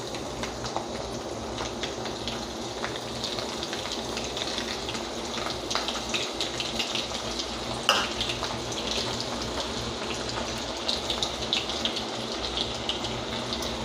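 Chopped garlic and cumin seeds sizzling in hot oil in a kadai: a steady hiss with scattered crackles and a sharper pop about eight seconds in.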